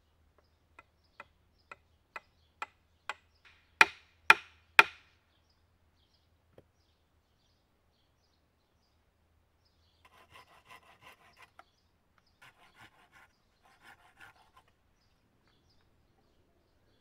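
A wooden peg being driven into a drilled hole in a log: about ten light knocks, about two a second, growing louder, ending in three hard blows. Later, three short spells of quieter scraping of wood on wood.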